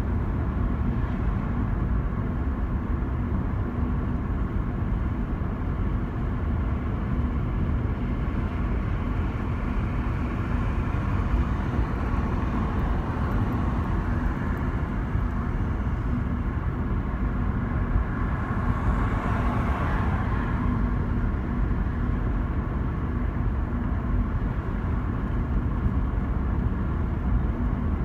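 Car interior noise while driving: a steady low road and engine rumble with a faint steady hum, swelling briefly into louder rushing noise about two-thirds of the way through.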